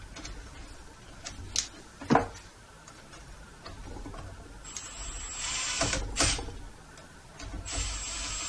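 Cordless drill/driver running twice in bursts of about a second and a half, with a steady high whine, driving screws into the saw's plastic housing. A couple of sharp knocks from parts being handled come about two seconds in.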